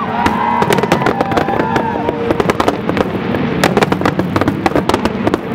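Fireworks display: a few whistling tones rise and fall in the first two seconds, over dense, rapid crackling pops that grow thicker in the second half.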